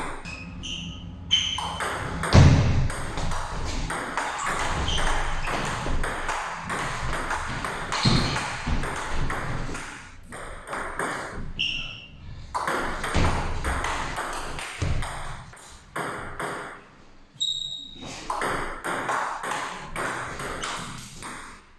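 Table tennis rally: the plastic ball clicking off the rubber-faced bats and bouncing on the table in quick, irregular succession, over the noise of the hall. Brief lulls between points.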